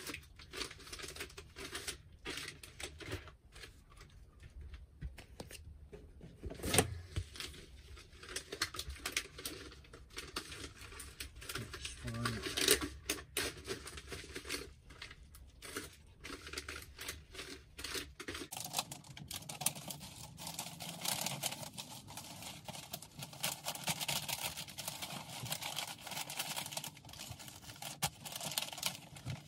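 Paper and padded envelopes and plastic packaging rustling and crinkling as parcels are packed by hand, with scattered small taps and knocks on a desk; the loudest knock comes about seven seconds in.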